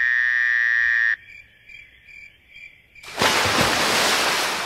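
Swamp-night intro sound effects: a loud frog call held until about a second in over steady chirping insects, then a sudden loud rush of noise from about three seconds in that fades away toward the end.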